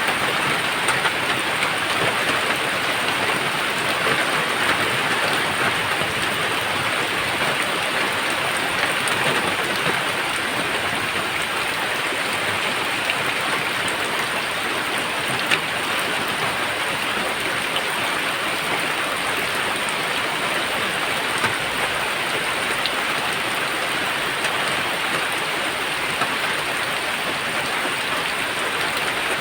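Steady rain falling hard and evenly, with a few sharper drop ticks here and there.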